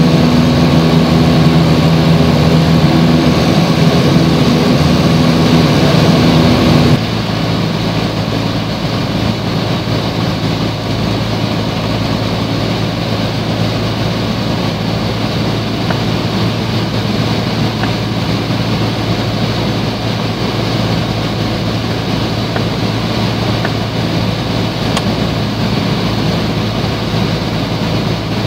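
Piper PA-28's single piston engine and propeller droning steadily in the cabin. Loud for the first several seconds, it drops abruptly to a quieter, even drone about seven seconds in.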